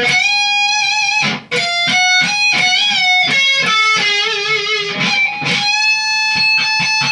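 Distorted ESP LTD EC-500 electric guitar playing a slow lead-solo phrase. It opens on a held note, then picks single notes with bends and vibrato, and ends on a long sustained note.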